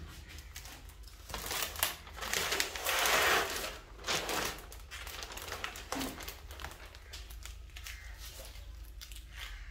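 Self-adhesive PVC marble sheet and its paper backing crinkling and rustling as the backing is peeled off and the vinyl is pressed down. It is loudest about two to three seconds in, then gives way to softer rubbing as a cloth is wiped over the sheet.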